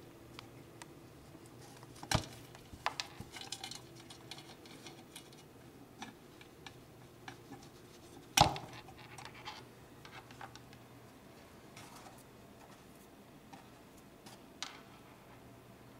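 Faint handling noise of hands working speaker wires and pulling spade connectors off a woofer's terminals: scattered small clicks and rustles, with two sharper knocks about two seconds in and about eight seconds in.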